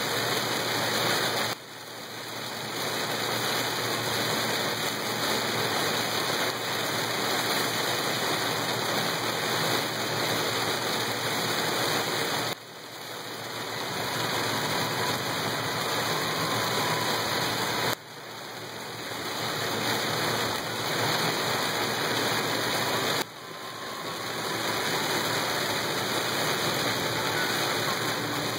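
Heavy rain on a moving car, heard from inside the cabin: a dense, steady hiss of rain on the roof and windshield mixed with tyre noise on the wet road. Four times the noise falls away sharply and then builds back up over a few seconds.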